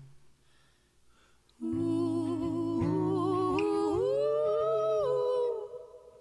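Live vocal music: after a short quiet pause, voices hum long held notes in harmony, the upper line rising in pitch partway through, then dropping away near the end.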